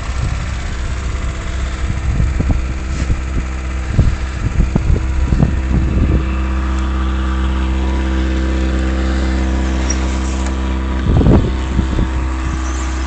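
A motor or engine running steadily with an even hum, with irregular short thumps over the first six seconds and a louder burst about eleven seconds in.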